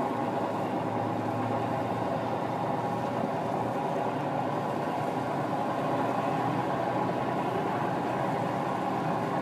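Fishing trawler's diesel engine running steadily as the boat works against a strong tide toward the wharf.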